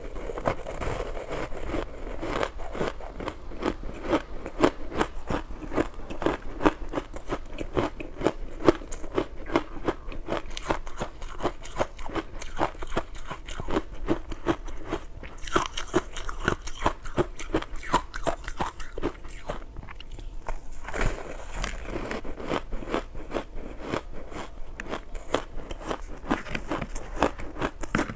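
Close-miked chewing and crunching of soft powdery ice coated in matcha powder: a rapid, continuous run of crisp crunches with a short lull about two-thirds of the way through.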